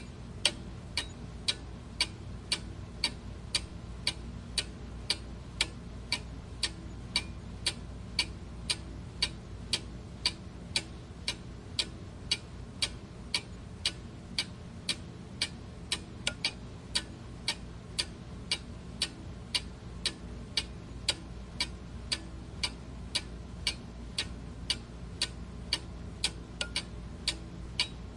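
Clock ticking steadily at about two even ticks a second, over a faint low steady background hum.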